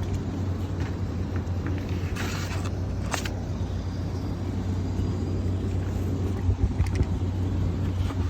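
Steady low machinery hum, with a brief rustle of a pleated air filter being handled and slid into the filter rack about two seconds in, and a sharp click just after.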